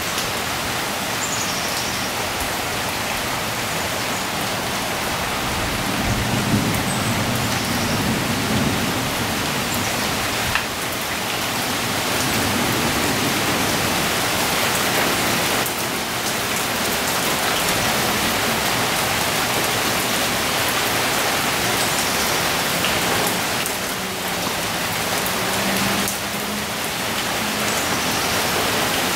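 Heavy rain pouring steadily, a dense even hiss, with a low rumble of thunder starting about six seconds in.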